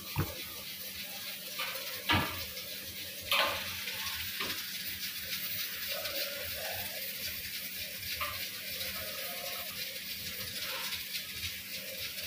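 Quiet kitchen room tone with a steady hiss and low hum, broken by a few short knocks in the first four or so seconds, from hands working stuffed naan dough on a steel worktop.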